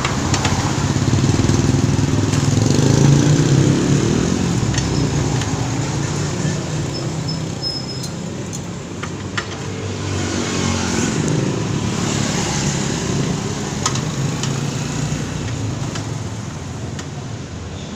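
A small motor vehicle engine running steadily, with a low rumble that swells a few seconds in, and a few faint clicks.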